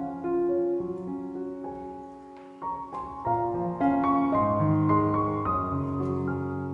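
Background music: a solo piano piece playing a sequence of notes.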